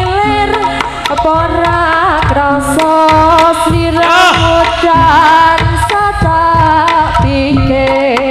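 Javanese jaranan gamelan music, played loud: hand-drum strokes keep a steady beat under a wavering, bending melody line and held steady tones.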